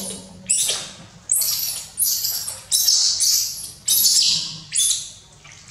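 Baby monkey shrieking, a string of about seven shrill, rasping cries coming one after another, each starting sharply and tailing off.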